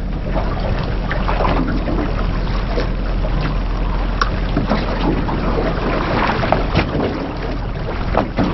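Wind on the microphone and choppy sea slapping against a small boat's hull, over a steady low hum, with scattered short knocks.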